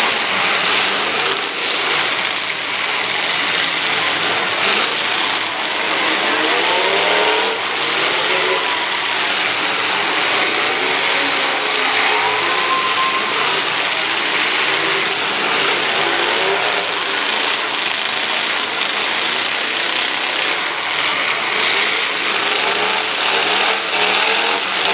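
Many demolition derby cars' engines revving at once, their pitch rising and falling over a steady wash of noise, with scattered impacts as the cars ram one another.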